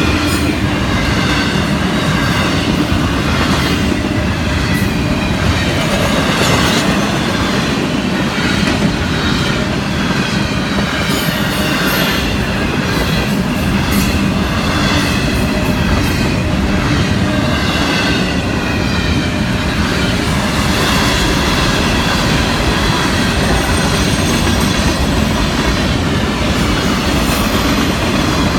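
Freight train cars rolling past steadily, double-stack container cars and then flatcars: a continuous rumble of steel wheels on the rails with clacking, and a wavering high wheel squeal over it.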